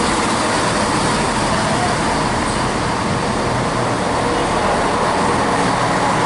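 CrossCountry Class 170 Turbostar diesel multiple unit moving slowly past along the platform, its underfloor diesel engines running with a steady hum.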